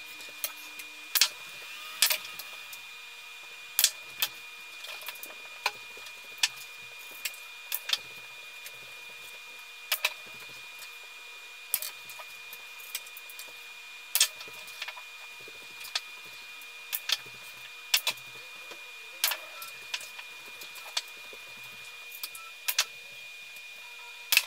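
Fast-forwarded pool play: a quick, irregular series of sharp clicks from cue strikes and billiard balls colliding, roughly one a second, over a steady high hum.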